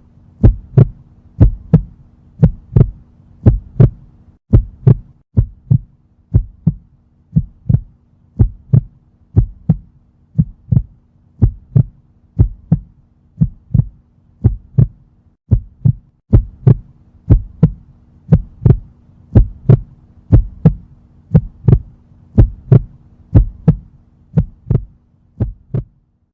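Heartbeat sound effect: a steady lub-dub double thump, about one and a half beats a second, over a faint steady hum.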